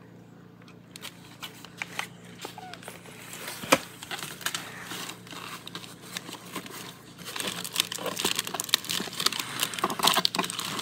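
Plastic snack wrappers crinkling and a cardboard snack box being handled as a packet is pulled out: scattered rustles and small clicks that grow busier in the second half, with one sharper tap a little under four seconds in.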